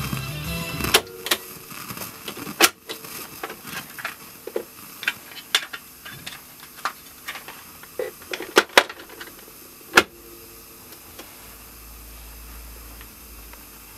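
Music stops about a second in, then a string of sharp plastic clicks and small knocks: the ITT stereo 5650's cassette deck keys being pressed, and a compact cassette handled and snapped into its clear plastic case. The loudest clicks fall about a second in, near 2.7 s, twice close together near 8.7 s, and once at 10 s.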